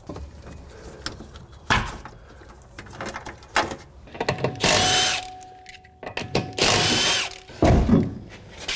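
Light clicks and a sharp knock, then about three short bursts of an impact wrench spinning lug nuts off a car wheel in the second half.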